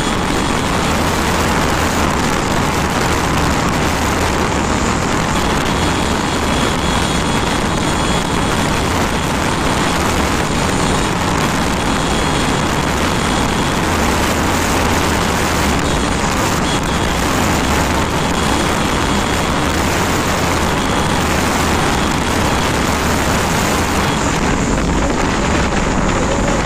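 Wind rushing over the microphone mixed with the TVS Raider's 125 cc single-cylinder engine held at full throttle at about 110 km/h, a loud steady noise. It eases near the end as the bike comes off top speed.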